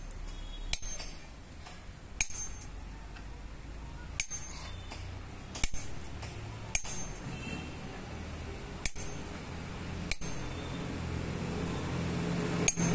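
Hammer tapping a steel chisel against a stone grinding slab: about eight sharp, ringing metallic clinks, a second or two apart. The stone's face is being pecked rough again so it will grind masala.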